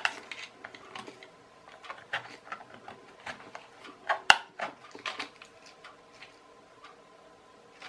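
Sticky paper being scraped off the moulded plastic underside of a toy RC car: a run of irregular small scratches and clicks, with one sharp click about four seconds in.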